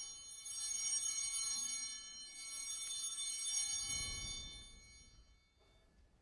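Altar bells rung at the elevation of the chalice during the consecration: a bright, many-toned ringing, struck again a couple of times, that fades out near the end.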